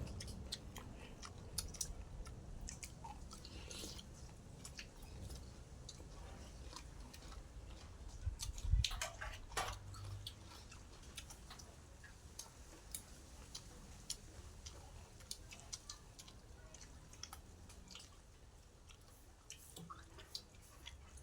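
A person chewing and eating food close to the microphone, with small wet clicks and smacks throughout and a louder knock about nine seconds in.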